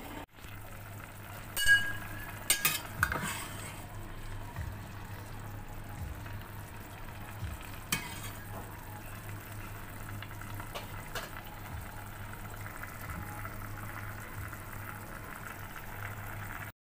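Beef and white radish braising in a stainless steel pot, the liquid bubbling and sizzling steadily. About two seconds in, a utensil scrapes and rings against the pot, followed by a few clinks.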